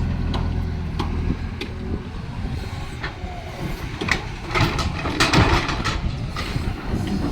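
Excavator diesel engine running steadily, with scattered clanks and knocks and a louder clattering burst about five seconds in.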